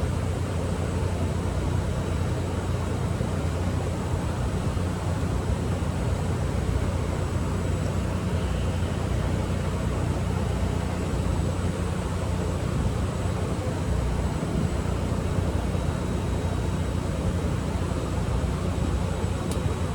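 Steady low mechanical drone with a faint high-pitched whine over it, unchanging throughout.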